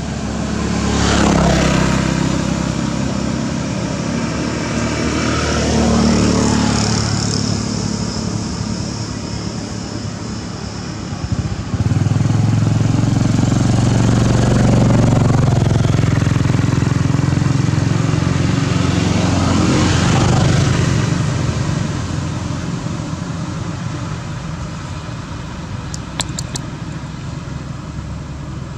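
Motor vehicle engines running and passing by, with passes about a second in, about six seconds in and about twenty seconds in. A louder steady engine hum sets in suddenly about twelve seconds in.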